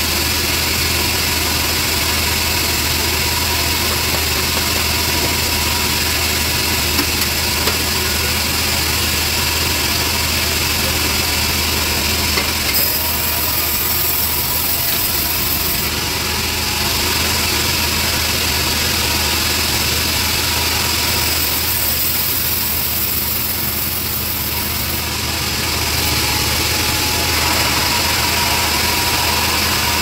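Homemade band sawmill running steadily, its blade sawing a large trembesi (rain tree) timber. A hiss comes in twice in the high range for a few seconds each, around the middle.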